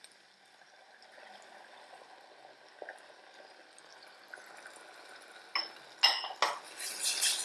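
Thick tomato sauce poured faintly from a glass bowl into a stainless steel saucepan, then a sharp clink against the pan about six seconds in, followed near the end by a silicone spatula stirring in the pan with a rhythmic scraping.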